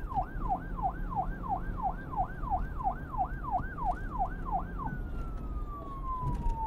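Siren in rapid yelp mode, about two and a half falling-and-rising sweeps a second, changing about five seconds in to one long, slowly falling tone. A steady low rumble runs underneath.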